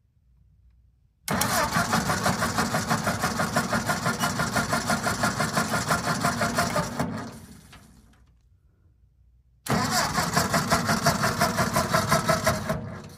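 Toy walking tractor's built-in engine sound effect, set off twice: a chugging engine starting and running, each time cutting in suddenly and fading away after a few seconds, the first run longer than the second.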